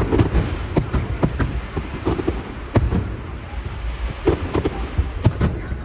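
Aerial fireworks shells bursting in irregular succession: sharp bangs and cracks about a dozen times over a low, continuous rumble of echoing booms.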